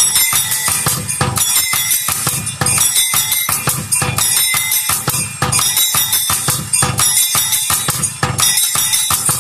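Rhythmic percussion: bells jingling and ringing over a steady beat of low drum thuds, several strikes a second.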